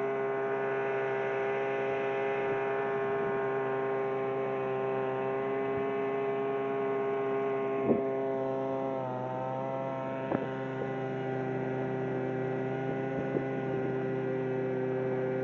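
A boat's motor running steadily with an even whine that drops slightly in pitch about nine seconds in. A few light knocks sound over it, the loudest about eight seconds in.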